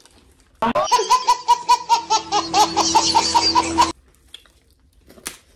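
A burst of laughter, rapid rhythmic ha-ha pulses at about five a second, lasting about three seconds. It cuts in and out abruptly.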